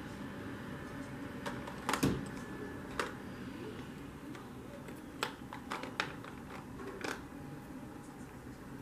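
Makeup containers and applicators being handled: scattered light clicks and taps, a double one about two seconds in the loudest, over a steady low room hum.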